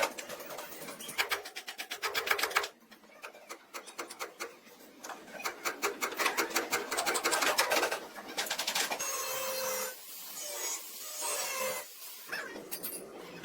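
Rapid rasping strokes of a hand tool worked over metal bodywork, in several runs broken by short pauses.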